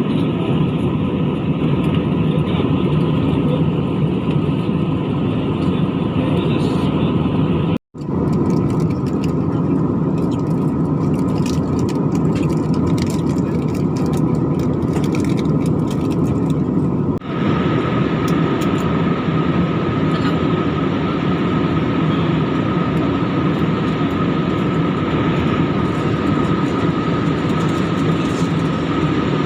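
Steady roar of an airliner cabin in flight, engine and airflow noise with a faint steady whine. It cuts out for an instant about eight seconds in and changes slightly in tone near the middle.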